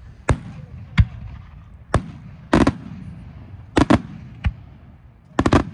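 Aerial firework shells bursting in a professional display: a string of sharp bangs about once a second, with quick doubled and clustered reports around the middle and again near the end, over a continuous low rumble.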